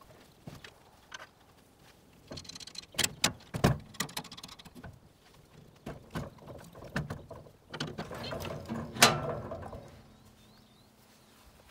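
Irregular metal knocks and clanks from coupling a trailer seat cart's hitch bar to a two-wheel walk-behind tractor, with scraping and rustling in between; the sharpest clank comes about nine seconds in.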